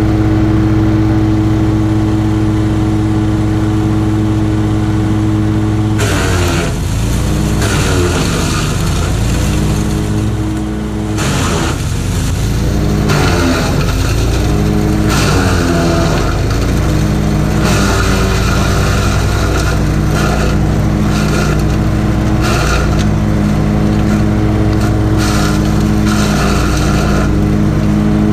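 DelMorino Scutum SCGX 390 wood chipper with its single-cylinder Honda GX390 petrol engine, running steadily at speed, then chipping leafy branches from about six seconds in. The engine pitch repeatedly dips under load and recovers, over bursts of crunching and cracking as the knives and flails cut the wood.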